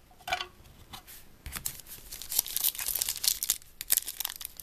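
Trading-card pack wrapper crinkling and tearing as it is opened, a dense run of sharp crackles starting about a second and a half in.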